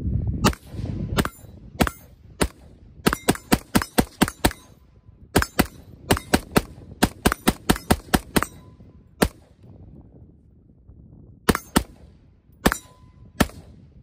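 Smith & Wesson M&P15 Sport II AR-15 in 5.56 NATO, fitted with a Strike Industries muzzle brake, fired semi-automatically. About thirty sharp shots come singly and in quick strings of about five a second, with a pause of about two seconds two-thirds of the way through.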